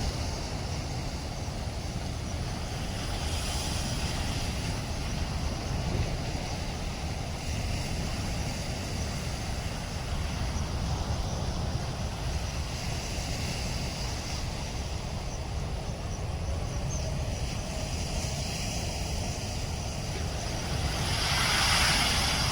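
Floodwater rushing through the dam, a steady, even roar with a heavy low rumble, swelling briefly near the end.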